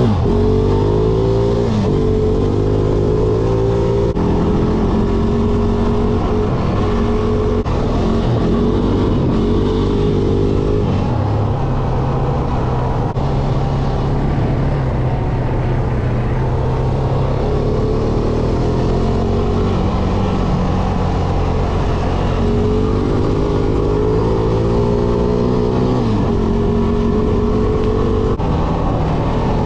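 2011 Honda Rancher 420 ATV's single-cylinder engine running as it rides a dirt trail, heard close up from the handlebars. Its pitch climbs and drops back a few times near the start and again about three-quarters through, steadier in between.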